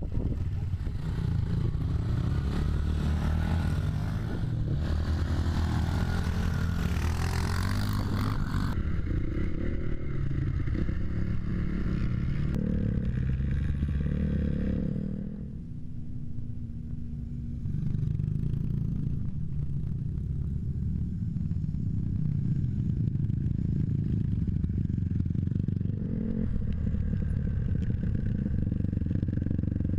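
Small children's motocross bikes running as they ride along a field track, heard from a camera mounted on a following bike, with wind and rattle on the microphone. The sound changes abruptly about nine seconds in, and dips briefly in the middle.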